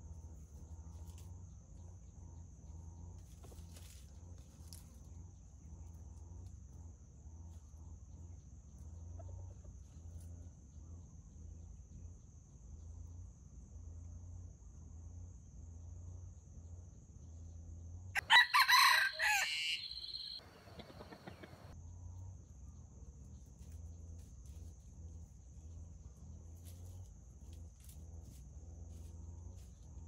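A rooster crows once, a loud call of about two seconds a little past the middle, over a steady high chirring of insects.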